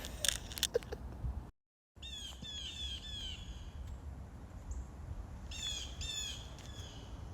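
A bird calling outdoors: two runs of short, quick calls that each slide downward in pitch, about four in a row a couple of seconds in and four more near the end, over a steady low rumble. A few clicks come in the first second.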